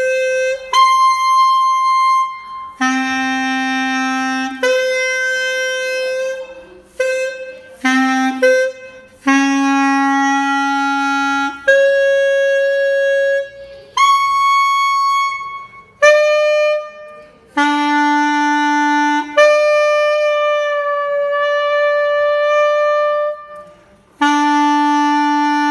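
A John Packer student clarinet playing about a dozen single long notes one after another, each held steady for a second or two and one for about four seconds, jumping between low and high registers. The notes are being checked against a tuner and many sound off pitch, some flat and some sharp: the player judges the clarinet very out of tune.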